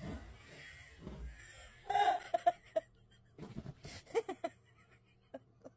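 Pomeranian rummaging and pawing in bedding: rustling and scratching on the blanket, with a few short squeaky sounds about two seconds in and again near four seconds.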